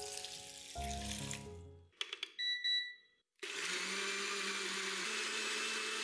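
Countertop blender being started: a few clicks and a short electronic beep from its controls, then about three and a half seconds in the motor starts and runs steadily, puréeing pandan leaves in water. Background music plays over the first two seconds.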